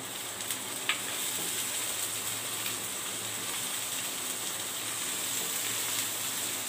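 Chopped onions and tomatoes sizzling in hot oil in a nonstick kadai as they are sautéed and stirred with a wooden spatula. A steady frying hiss with a light tap or two from the spatula near the start.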